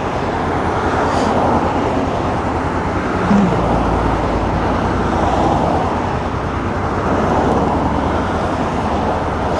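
Road traffic: cars and trucks driving past on a street, a steady wash of tyre and engine noise over a low rumble.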